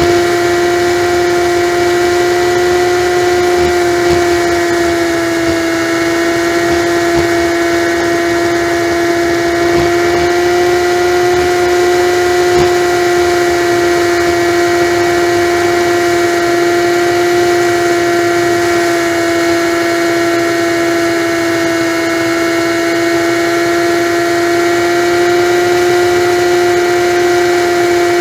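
Honda Magna V4 motorcycle cruising at a steady highway speed, heard from its handlebars. Its engine gives a steady whine that holds one pitch, over constant wind noise.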